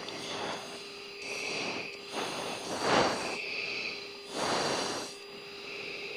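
Heavy breathing into a fighter-jet oxygen mask microphone over the intercom: about four hissing breaths a second or so apart, over a steady cockpit hum. The hard breathing follows a 9.5 G turn.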